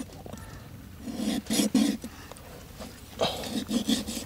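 A large knife cutting and scraping through the skin and joint of a plucked emu's small wing to sever it from the carcass, in two bursts of short strokes.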